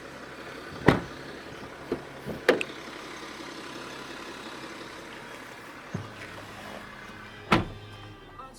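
A few sharp knocks or thumps, the loudest about a second in and near the end, over a steady low hum.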